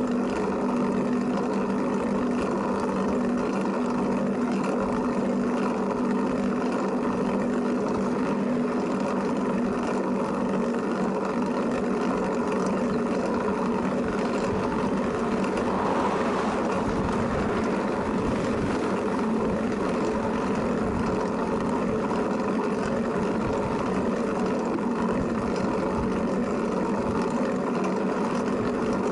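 Steady running noise of a vehicle in motion: a constant low hum with an even rushing noise over it, unchanging throughout.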